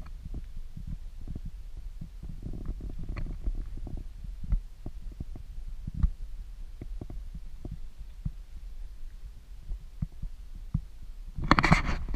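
Handling noise from a moving, body-held camera: irregular soft thumps and knocks over a low rumble, with a loud burst of rustling near the end.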